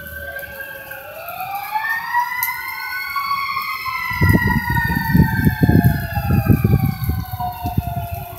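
Several sirens wailing at once, their pitches rising and falling and crossing one another. A low, pulsing rumble comes in about four seconds in and dies away near the end.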